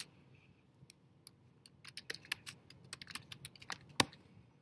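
Tapping and clicking on a laptop keyboard: a run of quick, uneven key taps for about three seconds, ending in one louder knock about four seconds in.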